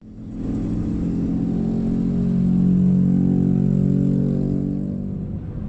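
Car engine and road noise heard from inside the cabin while driving: a steady drone that starts suddenly, swells a little about halfway through, then eases slightly.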